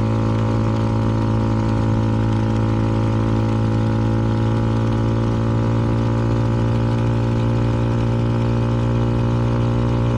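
CFMoto 300NK single-cylinder motorcycle engine running through an aftermarket KO exhaust, held at a steady engine speed with no revving.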